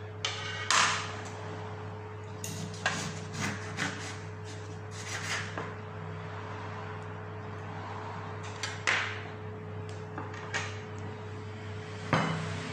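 Kitchen handling on a wooden cutting board: a knife cutting a lemon in half and objects being set down, heard as scattered sharp knocks and taps, the loudest near the end as a plate of salmon is brought onto the board. A steady low hum runs underneath.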